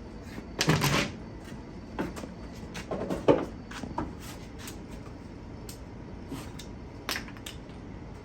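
A string of irregular knocks and clunks from boards and objects being handled and shifted by hand, the loudest about a second in.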